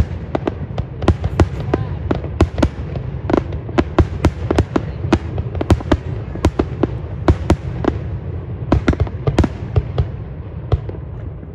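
Fireworks display: aerial shells bursting in a rapid, irregular series of sharp bangs, several a second, over a steady low rumble.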